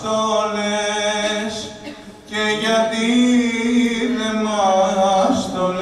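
A man's voice singing long held notes that slide from pitch to pitch, with little or no accompaniment, in two phrases with a short breath about two seconds in.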